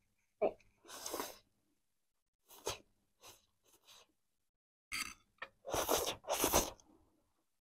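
Chow mein noodles being slurped into the mouth, with chewing: a string of short sucking slurps, the loudest two close together near the end.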